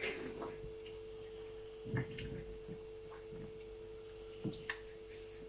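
A faint, steady hum holds one tone throughout. Over it come a few short, soft eating noises from a mukbang meal, at the start, about two seconds in and twice near the end.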